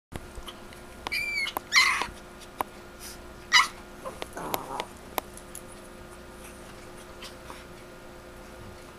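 Chihuahua screeching while play-fighting with another chihuahua: a few high-pitched yelps and two loud screeches in the first four seconds, a short rougher growl around four and a half seconds, then only small clicks and scuffling.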